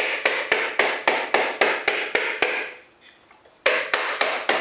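Ball-peen hammer tapping a whole coconut's shell in quick, even blows, about four a second, cracking it all around to loosen the shell from the meat. The tapping stops for about a second past the middle, then starts again.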